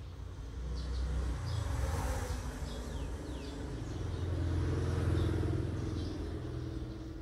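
A low rumble swells up about a second in and again more strongly around five seconds, with short high bird chirps scattered over it.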